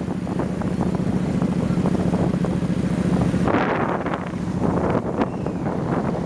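Wind buffeting the microphone of a moving motorbike, over the bike's steady engine hum; a strong gust swells about three and a half seconds in as the hum drops away, and another comes near the end.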